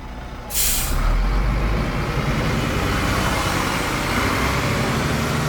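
A bus's engine running with a steady low rumble, opened about half a second in by a short sharp hiss.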